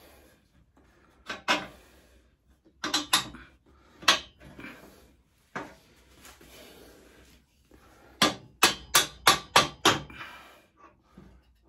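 Hammer tapping: a few separate blows, then a quick run of about eight strikes near the end.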